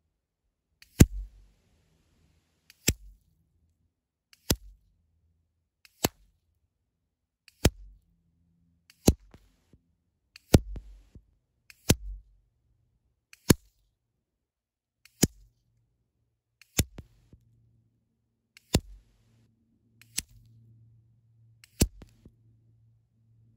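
A string of fourteen sharp shots from an EDgun Leshiy 2 PCP air rifle, fired in quick succession about one every one and a half seconds.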